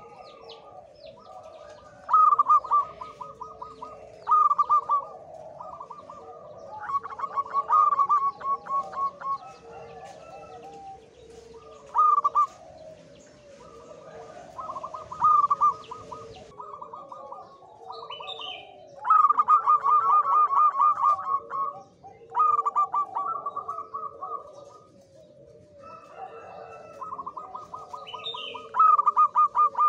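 A male zebra dove (perkutut) in strong breeding condition sings its staccato cooing song: about eight phrases, each a quick run of short, clipped notes lasting one to three seconds, a few seconds apart. Other birds call softly behind it.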